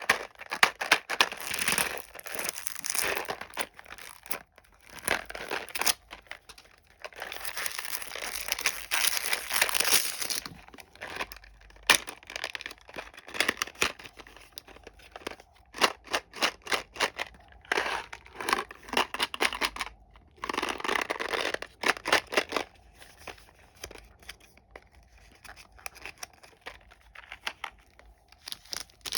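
Candy wrappers being crinkled and torn open, in bursts of crackling lasting a few seconds each, with a few sharp snaps in between.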